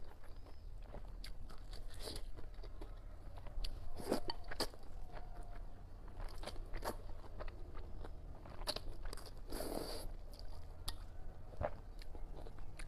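Close-miked eating sounds: a person slurping up mouthfuls of rice noodles and chewing them, with wet mouth clicks and a few louder slurps.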